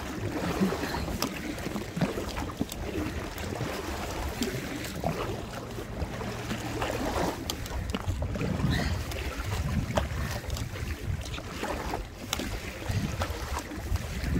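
Water splashing and sloshing around an inflatable kayak paddled hard against a strong current, with wind buffeting the microphone.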